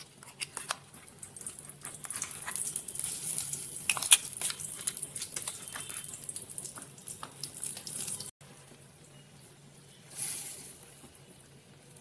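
Blended masala paste sizzling and crackling in hot oil in a steel kadai, with many small spits and pops. The sizzle cuts off abruptly about eight seconds in, leaving a quieter simmer with one brief swell of hiss near the end.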